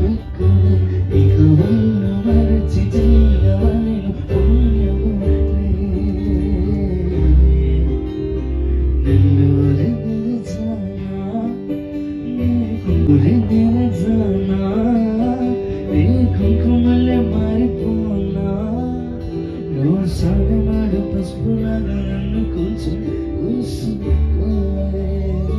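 Band music over a PA sound system, with heavy subwoofer bass, guitar and a singing voice. The music is played loud and without a break.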